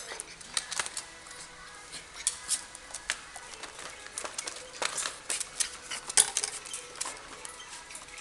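Irregular clicks, taps and light rattles from a Jack Russell Terrier puppy's claws on the plastic floor of a wire playpen and its paws against the wire bars as it jumps about.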